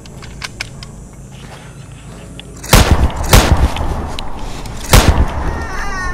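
Three shotgun shots: two about half a second apart, then a third about a second and a half later, each with a long echoing tail. Near the end a run of short falling calls begins.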